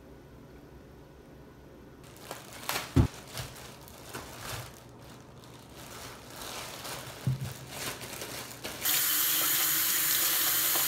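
A plastic produce bag crinkling and rustling as apples are handled and taken out of it, with a thump about three seconds in. Near the end a kitchen tap starts running steadily over a stainless-steel sink, the loudest sound.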